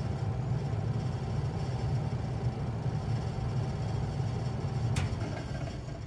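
A 2000 3-ton Bard wall-hung heat pump running in cooling mode with a steady low hum and a thin steady tone. About five seconds in there is a sharp click as the unit shuts off: the tone stops, the hum drops, and a faint falling tone fades away.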